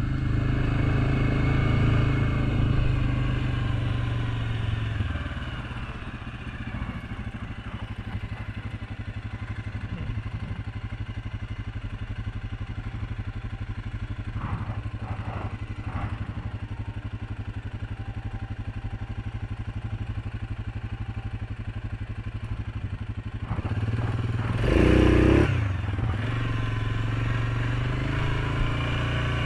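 2019 Suzuki KingQuad 750 ATV's single-cylinder four-stroke engine running. It is under way for the first few seconds, then idles steadily at a stop, and picks up again near the end with a brief loud burst.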